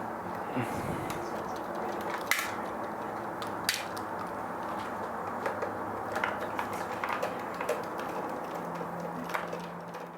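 Scattered small metallic clicks and clinks of tools and grinder parts being handled, over a steady low hum and hiss.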